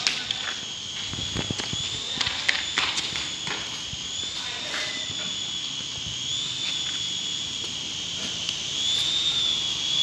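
Toy remote-control helicopter in flight: a steady high-pitched whine that wavers slightly in pitch, with a few short knocks and clicks in the first three seconds.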